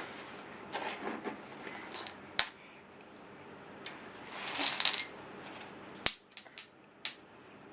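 Coins clinking as they are dropped one by one into a piggy bank. There is a single clink, then a short jangle, then four quick sharp clinks near the end.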